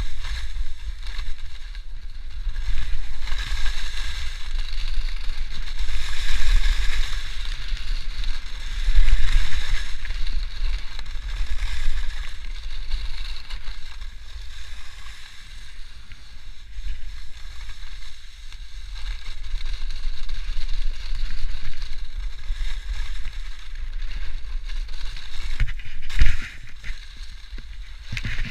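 Skis hissing over snow while wind buffets the camera microphone in a low rumble, swelling and easing with speed. There is one sharp knock near the end.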